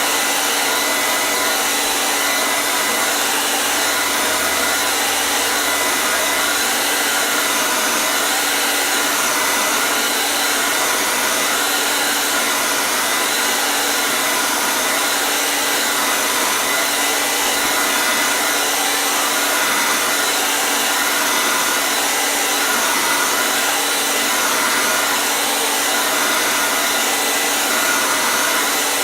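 Hair dryer running steadily: an even, unbroken rushing of air with a faint steady whine from the motor.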